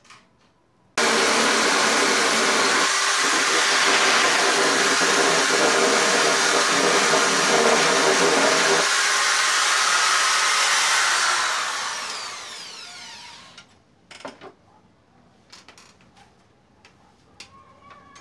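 Handheld electric drill running at full speed, starting abruptly about a second in. Near the end it is released and winds down, its whine falling in pitch until it stops, followed by a few light knocks.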